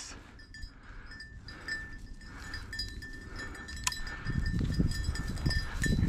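A small bell jingling steadily, with one sharp click near the middle. Rustling through dry grass and footsteps grow louder over the last couple of seconds.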